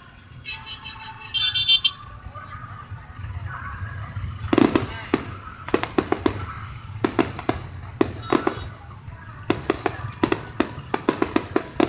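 Aerial fireworks bursting overhead: a string of sharp bangs starting about four seconds in and coming faster near the end. A brief shrill warble sounds about half a second in.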